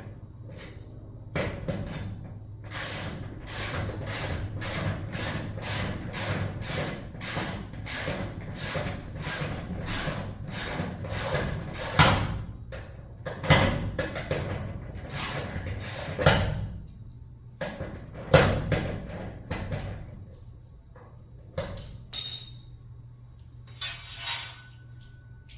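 Hand ratchet wrench worked in quick even strokes, about two and a half a second, tightening bolts on the door's reinforcement plates. About halfway through it slows to a few irregular, louder clicks and knocks.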